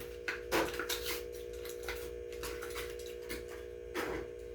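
Irregular clicks and ticks of a Hot Wheels blister pack being handled and opened, over a steady faint electrical hum.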